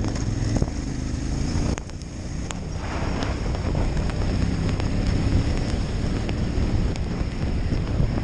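Adventure motorcycle engine running under way on a gravel track, with heavy wind buffeting on the microphone. A few sharp ticks are heard in the first few seconds and near the end.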